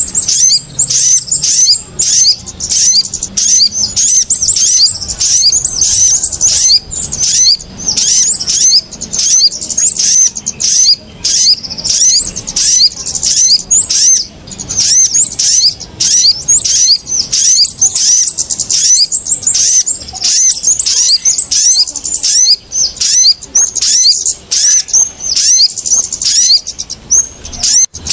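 Bird-lure (pikat) recording of small birds calling agitatedly, kemade and sogok ontong (sunbird) calls mixed together: a dense, unbroken run of quick high chirps, two or three a second, meant to draw small birds down to the lime sticks.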